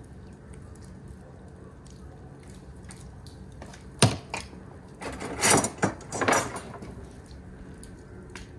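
A sharp knock about four seconds in, then about two seconds of clattering handling noise, over a steady low hum.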